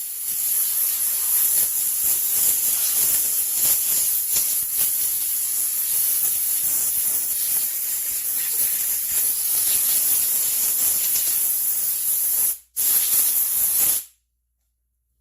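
Compressed air hissing steadily as it is blown over a chainsaw gas tank to clean it. It breaks off for an instant near the end, starts again briefly, then cuts off sharply.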